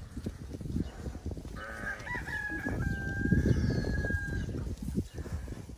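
A rooster crows once, a long held call of about three seconds starting about a second and a half in. Underneath it, sheep keep crunching and chewing frozen fruit ice.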